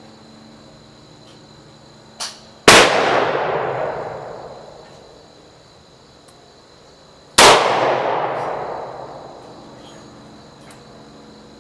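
Two shots from a Taurus M445 .44 Special revolver, a few seconds apart, each followed by a long fading echo. A small click comes just before the first shot.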